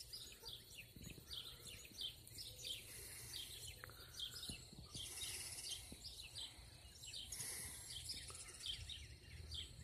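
Faint dawn chorus of several songbirds: many short, overlapping high chirps and calls, with a steady low rumble underneath.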